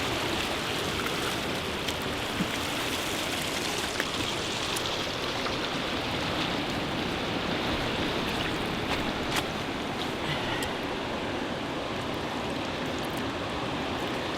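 Steady rushing noise of water, with a few faint clicks scattered through it.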